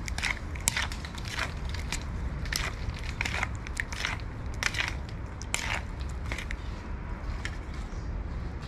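Metal spoon clinking and scraping against a bowl while stirring a wet, seasoned mixture of peeled fruit: a busy run of sharp clicks that thins out after about six seconds, over a steady low rumble.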